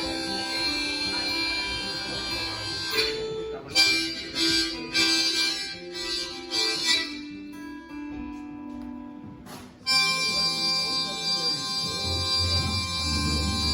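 Rock band's instrumental break with no singing: a harmonica plays lead over guitar. Short stabbed notes come about four to seven seconds in, the music nearly drops out just before ten seconds, then comes back in full.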